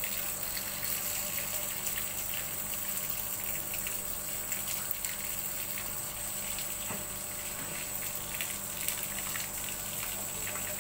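Water from a garden hose running in a steady stream and splashing onto a dog and a wet concrete floor.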